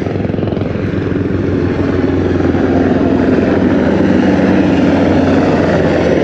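Black Hawk-type military helicopter flying past overhead, its rotors making a steady fast chop that grows a little louder about halfway through.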